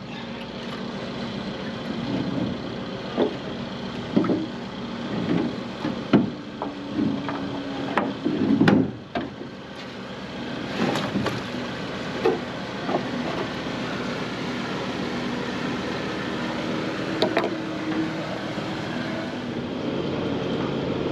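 A boat engine running steadily, with a series of sharp knocks and clunks as the damaged rudder and its fittings at the stern are handled; the loudest clatter comes about eight seconds in.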